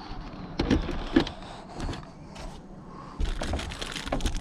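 Handling noise inside a car: a few clicks and knocks with rustling, as someone moves about and reaches into the overhead storage compartment, with a cluster of knocks near the end.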